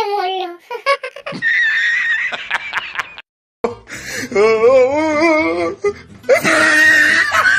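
Edited comedy soundtrack of laughter and snatches of voices, cut off by a moment of silence just past three seconds in, then a wavering, warbling voice and a noisy burst of laughing near the end.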